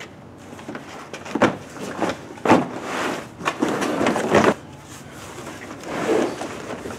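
Long cardboard shipping box being opened by hand: flaps pulled open and folded back, the cardboard scraping and rustling with several sharp knocks.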